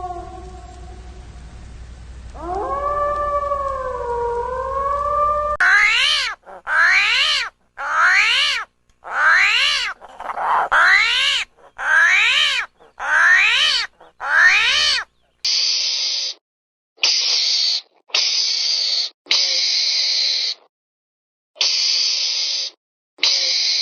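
A series of recorded animal calls. First comes one long wavering call, then about nine short calls that each rise in pitch, roughly one a second. Last comes a string of short hissing bursts, about one a second.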